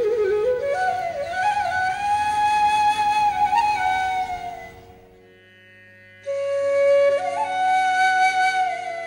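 Background music: a solo flute playing a slow melody with gliding notes over a steady drone. The melody breaks off about halfway through, leaving the drone alone, then comes back.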